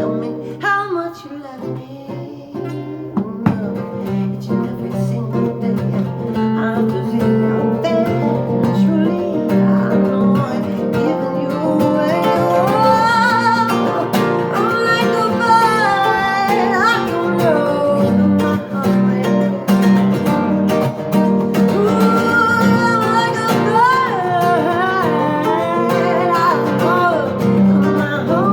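A guitar played steadily as accompaniment, with a woman's voice singing a melody over it through the middle and again near the end.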